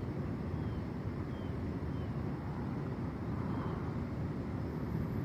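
Steady low background rumble, with a few faint short high chirps.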